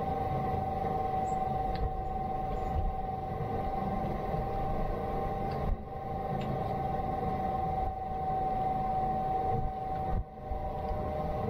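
A steady mechanical drone, a constant mid-pitched tone over a low rumble, with a few faint clicks.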